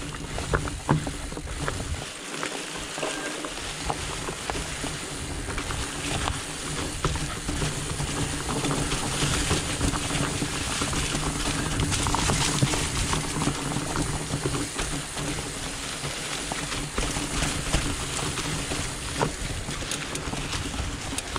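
Trek Farley 5 fat bike riding over a dirt trail: a steady rumble of fat tyres on the ground, with frequent clicks and rattles from the bike as it goes over bumps.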